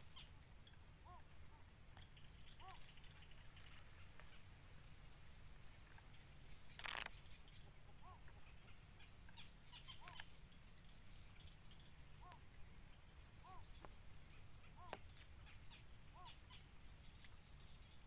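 Insects droning on one steady high note, with short soft calls every second or two and a single sharp click about seven seconds in.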